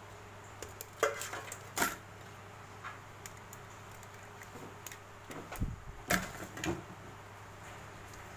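Blue swimming crabs handled in a stainless steel sink: a few scattered clicks and knocks of shell against shell and against the steel.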